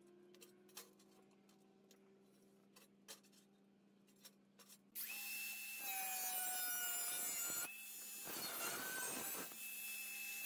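A few faint ticks, then about five seconds in a Greenworks cordless angle grinder starts up with a high whine, and its cutting disc bites into sheet steel, the whine sagging in pitch as the disc is loaded, with a harsh gritty grinding stretch near the end.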